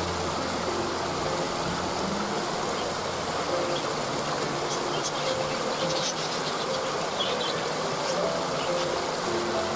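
Steady rushing water of a waterfall, with small birds chirping in short bursts now and then over it and soft held musical notes underneath.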